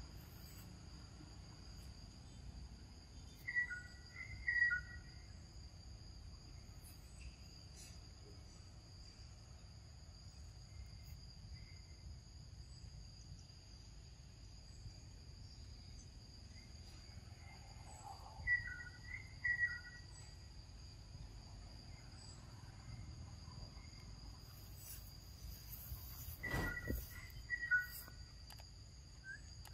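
Insects buzzing steadily in a high, even tone, with short two-note chirping calls in three brief clusters, about 4, 19 and 27 seconds in. A few soft knocks come near the end.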